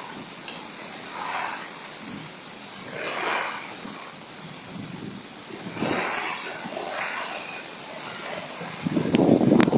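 Heavy rain pouring down on a deck, heard through a Ring security camera's microphone, with the noise swelling every couple of seconds. Near the end a loud thunder rumble breaks in with a couple of sharp cracks.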